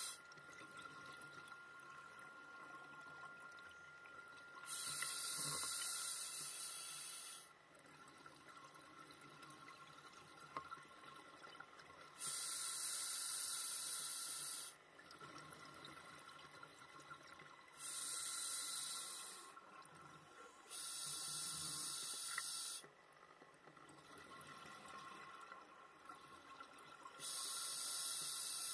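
Scuba exhalation bubbles rushing past the diver's regulator underwater, in five separate bursts of about two to three seconds each, every few seconds like a breathing rhythm. A faint steady hum lies beneath.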